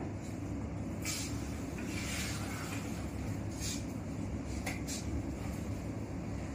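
Cotton bedsheet rustling as it is spread and shaken out over a hospital bed, in about four brief swishes, over a steady low hum.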